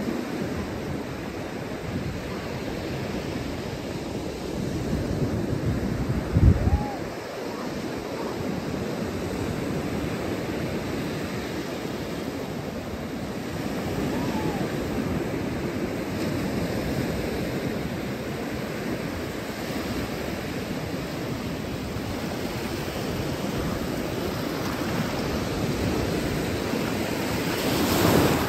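Ocean surf washing onto the beach as a steady rushing noise, with wind on the microphone. A brief low thump about six and a half seconds in, and the rushing swells up near the end.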